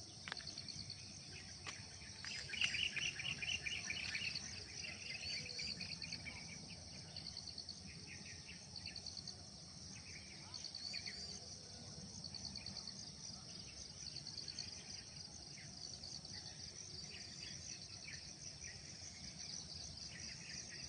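A steady high chorus of insects trilling, with birds chirping in short bursts over it, the loudest burst about two to four seconds in.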